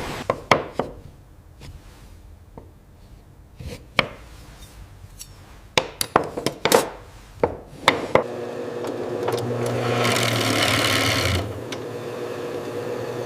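Sharp wooden knocks and taps, scattered and then in a quick cluster. A woodworking machine then starts running with a steady hum, and a loud rush of machining noise comes about ten seconds in.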